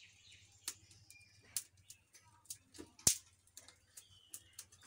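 Dry firewood twigs cracking and snapping at a clay wood-fired stove: scattered, irregular sharp cracks, one much louder about three seconds in.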